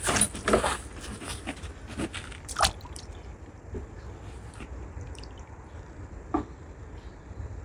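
Small splashes and drips of lake water as hands hold a sturgeon at the surface for release: several in the first few seconds, then quieter, with one more splash near the end.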